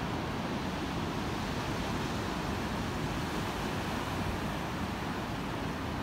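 Ocean surf: rows of waves breaking and washing in on a sand beach, an unbroken steady rush with no single wave standing out.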